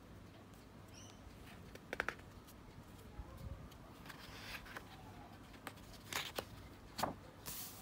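Faint handling noise of a sketchbook's paper pages: a few short, crisp scrapes and crackles as hands touch and shift the paper, with a couple of them clustered near the end.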